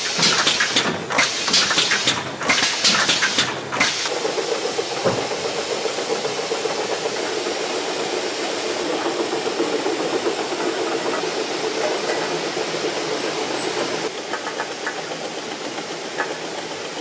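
Bottle filling and capping line machinery running. Dense rattling and clicking for about the first four seconds, then a steady mechanical whirr, with clicking coming back near the end.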